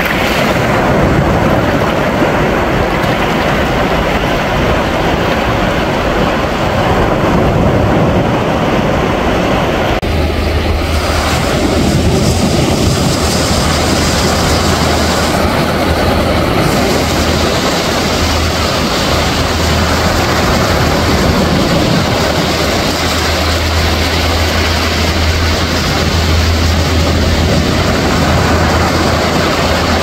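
Small waves lapping and washing up onto a sandy shore, a steady rushing wash. About ten seconds in, a steady low engine drone joins underneath and carries on.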